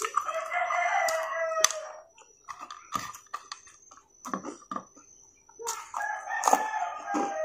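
A rooster crowing twice, each crow about two seconds long, with short crunching clicks of crispy fried chicken being chewed between the crows.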